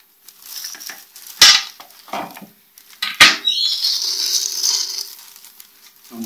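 Clear plastic packaging crinkling and rustling as it is handled, with two loud sharp sounds about one and a half and three seconds in.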